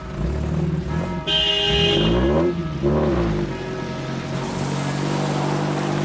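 Background music over a car being driven hard, its engine revving up and down about two to three seconds in.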